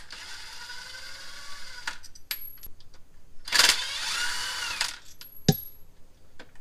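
Cordless drill running in two bursts: a steady run of about two seconds, then a few light clicks, then a louder run of about a second and a half. One sharp clank follows near the end.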